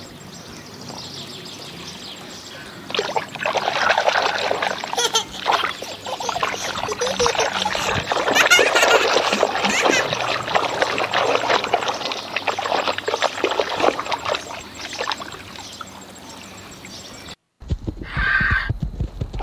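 Water splashing and sloshing as plastic animal toys are washed by hand in a tub, picking up about three seconds in. Near the end it cuts off suddenly and a loud animal call follows.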